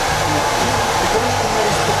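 Handheld hair dryer running steadily, blowing air onto a client's hair as it is brushed through.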